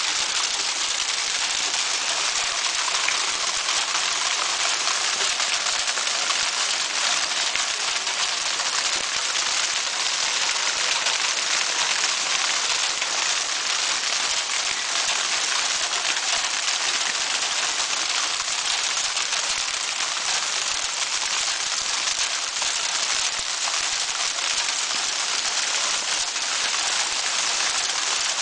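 Small hailstones falling steadily on a wooden deck and the ground around it: a dense, even hiss of countless tiny impacts that does not let up.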